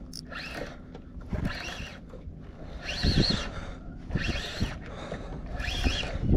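Fishing reel cranked while a hooked striped bass pulls, the drag slipping in short squealing buzzes about once a second: the drag is set loose enough to let the fish take line.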